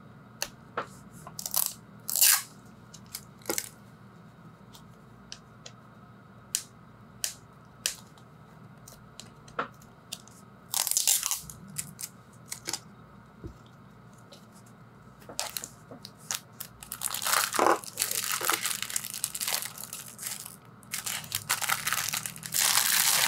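Hard plastic gachapon capsule clicking and tapping in the hands as it is turned and twisted open. About two-thirds of the way in this gives way to a long spell of loud crinkling as the clear plastic bag around the toy inside is handled.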